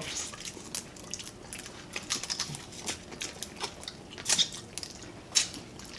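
Close-up eating sounds of people eating cooked crab with their hands: chewing and wet mouth smacks, with irregular sharp clicks as the crab is picked apart.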